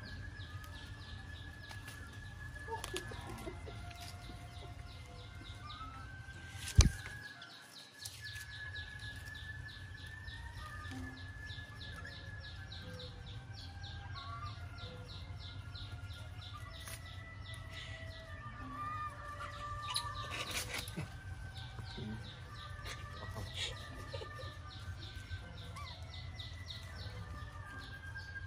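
Outdoor ambience of birds and chickens calling, with a steady low hum beneath. A single loud, sharp knock comes about seven seconds in.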